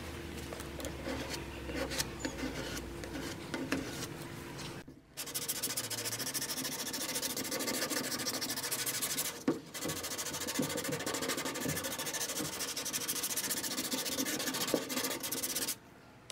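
Hand sanding of spot putty over body filler on a truck body panel, using a sanding block with 400-grit sandpaper: continuous scratchy back-and-forth sanding, broken briefly about five and nine and a half seconds in, and stopping shortly before the end.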